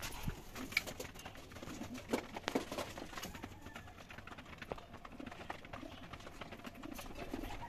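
Pigeons moving about in a wooden loft: scattered light taps and knocks of feet and wings on the wooden slats, with faint pigeon cooing near the end.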